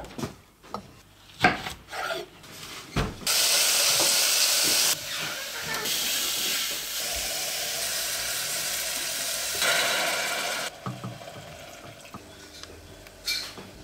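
A few knocks of a knife on a wooden chopping board, then from about three seconds in a loud sizzle of chopped onions frying in butter in a stainless saucepan, stirred with a wooden spoon. The sizzle drops away about eleven seconds in.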